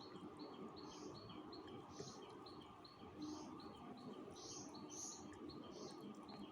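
Faint birds chirping repeatedly outdoors: short high chirps about three a second, with a louder call roughly once a second, over a low steady background hum.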